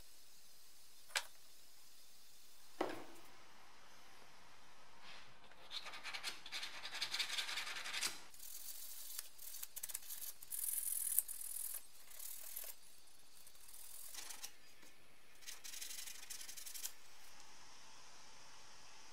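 A damaged plastic engine cooling fan blade tip being sanded by hand: irregular scratchy rubbing strokes with short pauses, after two sharp clicks in the first few seconds.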